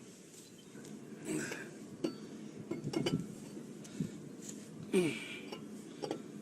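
Scattered metallic clinks and knocks of hand tools and brake hardware being handled during a brake pad change, a handful of separate short contacts spread over several seconds.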